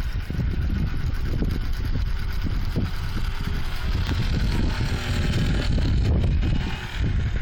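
Wind buffeting the microphone with a low, gusty rumble, over the steady hum of a radio-controlled model airplane's motor and propeller in flight, which swells in the middle and eases off near the end.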